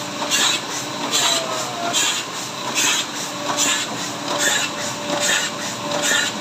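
Printing press running, a rhythmic mechanical clatter that beats a little more than once a second over a steady hum.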